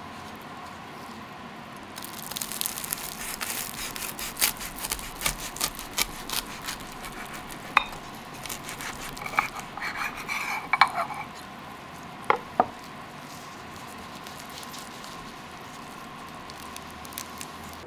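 Toasted sourdough crust crackling and crunching as a sauce-laden steak sandwich is squeezed and torn apart by hand. A dense run of sharp crackles starts about two seconds in and stops about eleven seconds in, with two last cracks shortly after, over a faint steady hum.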